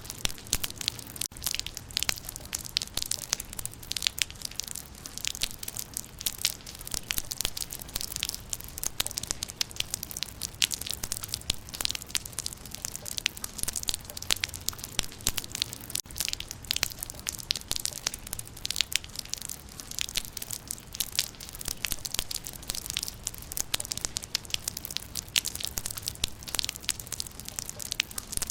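Rain falling on leaves: a steady patter of many close, irregular drops hitting foliage, with a low rumble underneath.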